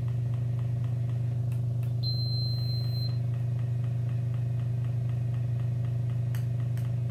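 Enteral feeding pump running its prime cycle: a steady motor hum with a light, rapid ticking. The tubing is kinked, so the pump is not yet priming the line.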